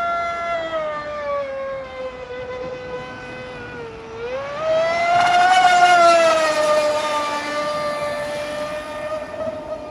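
Radio-controlled boat's motor running with a steady high whine. The pitch sinks slowly over the first four seconds, climbs quickly to its highest and loudest with a burst of hiss about five to six seconds in, then eases back down and holds.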